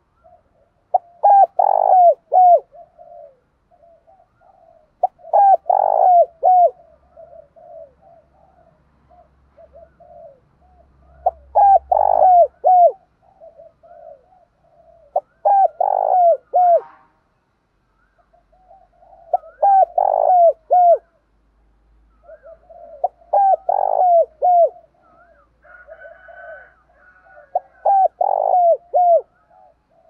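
Spotted dove cooing: a loud phrase of several coos repeated seven times, about every four seconds, with softer, lower coos in between.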